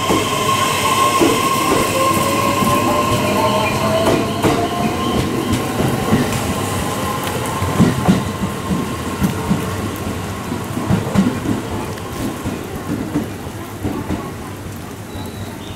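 JR E131-series electric train pulling away along the platform, its traction motors giving a whine that rises in pitch as it accelerates. After that, an E131-series train running in toward the platform, its wheels clacking over rail joints and points.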